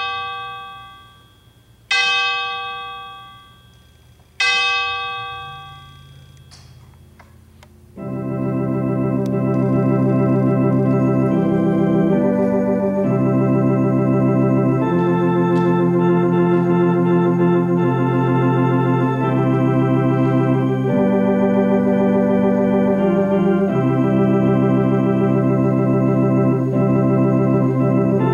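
A chime rings three times, about two seconds apart, each note dying away. About eight seconds in, organ music begins, full sustained chords at a steady level.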